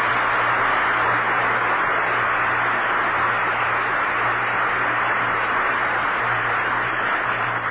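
Studio audience applauding, a loud, even clatter that dies away near the end.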